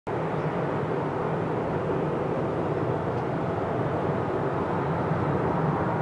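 Boeing 737 airliner's jet engines on final approach, a steady rushing engine noise that grows slowly louder as the plane nears.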